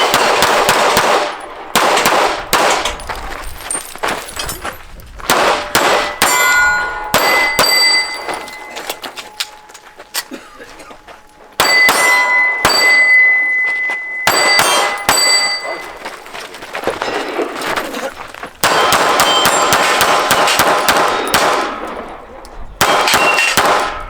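Pistol shots fired in quick strings at steel targets, with hits answered by a ringing clang of steel plates; a short lull comes about halfway through.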